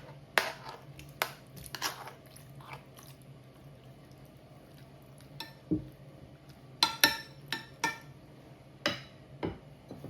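Kitchen utensils and dishes knocking and clinking irregularly, a dozen or so sharp knocks, some with a brief metallic ring, over a steady low hum.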